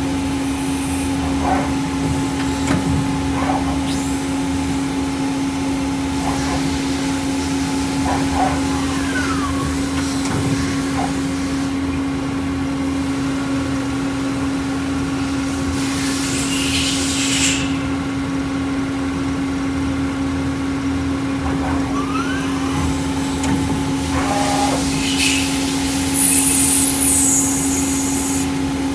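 Okuma LB15 CNC lathe machining a brass part under coolant: a steady machine hum with cutting and coolant noise, and a few short louder bursts of hiss as it works through drilling and turning tools.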